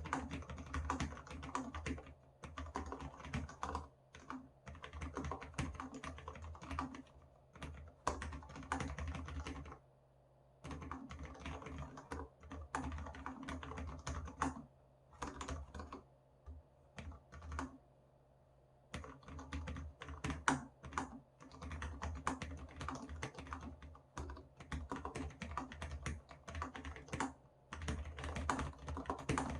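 Typing on a Cherry MX Board 10.0 keyboard with low-profile Cherry MX Red linear switches in an aluminium housing: quick runs of soft key clacks in bursts, with short pauses between. Under the clacks runs a low thudding that comes from the desk.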